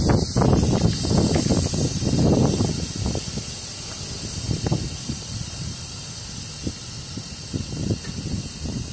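Compressed air hissing steadily from a freight tank car's air brake control valve. Wind buffets the microphone with low rumbling in the first few seconds, then eases.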